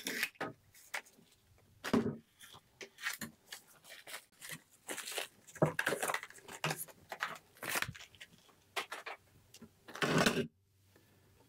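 Metal quilting-frame parts, including the bottom carriage, being handled and set down on a table: a run of small clicks, knocks and scrapes, with louder knocks about 2 s in and near the end.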